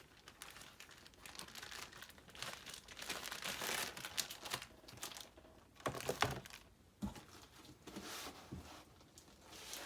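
Plastic packaging crinkling and rustling as graded comic slabs are handled and unwrapped, with a few sharp clicks and knocks of the hard plastic cases about six and seven seconds in.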